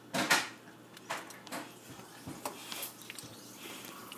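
Close-up handling noise: rustling and light bumps as something is pressed against the phone and its microphone. The loudest rustle comes about a third of a second in, with smaller ones scattered after it.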